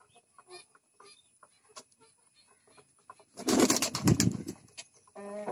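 A flock of pigeons on a loft floor: scattered light taps and rustles, then about three and a half seconds in a loud flurry of wing flapping lasting about a second. A low call starts near the end.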